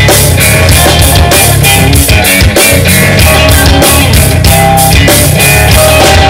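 Live blues-rock trio playing an instrumental passage: electric guitar notes over electric bass and a drum kit with regular cymbal strikes.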